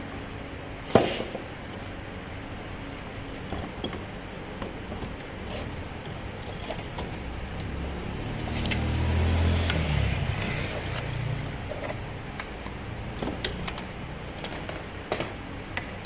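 Scattered clicks and clinks of metal tools and parts being handled, with one sharp knock about a second in. From about eight seconds in, a low engine hum swells and fades out by about eleven and a half seconds, like a vehicle passing.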